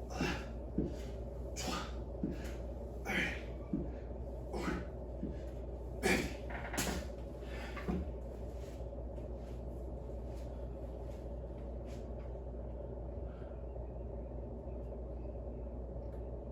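A man breathing hard in short, forceful breaths, about two every one and a half seconds, in time with leg-raise reps, stopping about eight seconds in. A steady low hum runs underneath.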